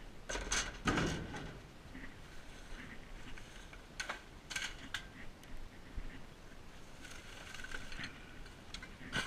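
Trash being thrown into a dumpster: a series of thumps, knocks and rustles as a board and bags land and the dumpster lid is handled, the heaviest thump about a second in.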